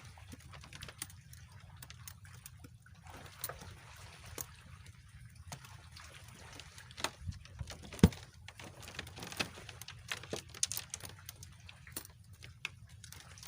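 Water sloshing and trickling, with irregular clicks and knocks throughout and one sharp knock about eight seconds in.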